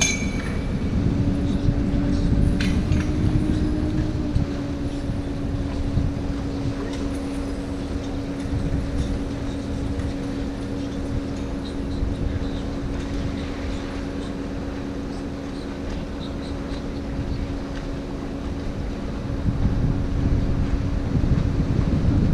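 Tour boat's engine running with a steady hum over a low rumble, its pitch easing slightly lower about four seconds in.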